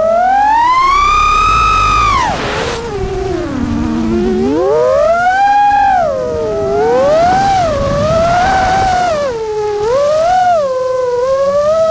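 The brushless motors and propellers of an iFlight Nazgul Evoque F6D V2 6-inch FPV quadcopter whining in flight, heard from the camera on board. The pitch swoops up and down with the throttle, drops steeply about two seconds in with a short rush of air, and climbs again a couple of seconds later.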